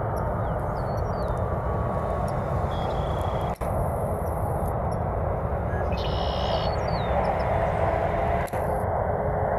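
Steady rumble of a taxiing Boeing 767 freighter's jet engines, heard across the airfield.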